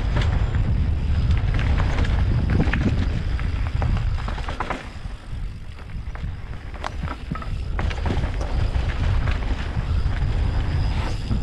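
Mountain bike ridden along a dirt trail: wind buffeting the microphone over the rumble of tyres, with scattered sharp knocks and rattles from the bike over bumps. The noise eases for a couple of seconds midway, then builds again.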